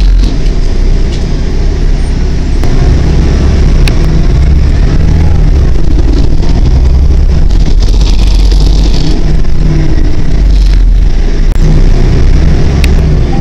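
Steady low engine and road rumble inside a moving New Flyer D40LF diesel city bus, with a couple of brief sharp clicks or rattles.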